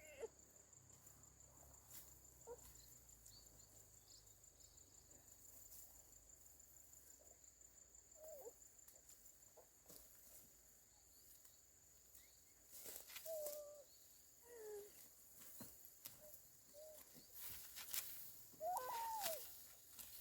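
Faint outdoor ambience: a steady high insect trill through the first half, with a few short chirping calls and scattered clicks, the loudest calls near the end.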